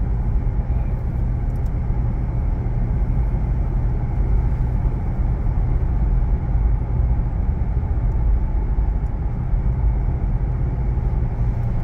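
Road noise inside a moving vehicle's cabin on the highway: a steady low rumble of engine and tyres with a faint hum, unchanging throughout.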